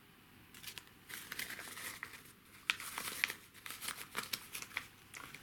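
Irregular crinkling and rustling from hands folding and handling a pair of hand-knitted socks, starting about half a second in.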